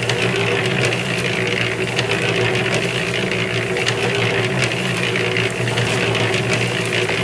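Harbor Freight electric concrete mixer running steadily: a constant motor hum and drum-drive whir, with faint irregular clicks.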